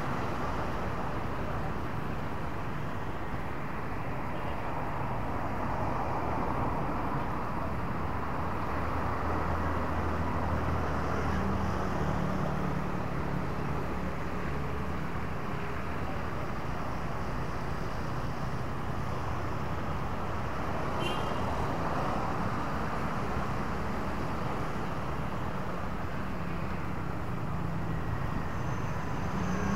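Street traffic of cars and motorbikes passing, a steady hum of engines and tyres. A louder low engine drone comes through between about ten and eighteen seconds in.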